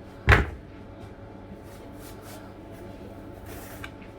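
A single sharp knock, like something solid being shut or set down hard, about a third of a second in, over a faint steady low hum.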